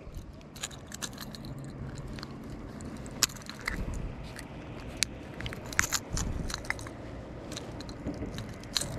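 Pliers clicking and scraping against a crankbait's treble hooks as they are worked out of a striped bass's mouth: scattered sharp clicks and small scrapes over a faint low rumble.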